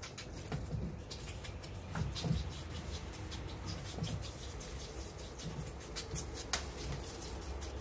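White-tailed deer fawns suckling at bottles in a rack, making many quick smacking and sucking clicks. Dull knocks come in between, loudest about two seconds in.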